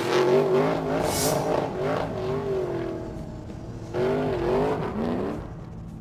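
Race car doing donuts: the engine is revving and the tyres are squealing, the pitch wavering up and down. There is a fresh surge about four seconds in, and the sound fades near the end.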